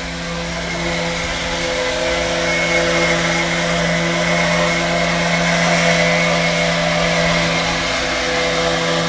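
Electric random orbital sander running steadily with a constant hum, its pad sanding old varnish off a wooden boom down to bare wood.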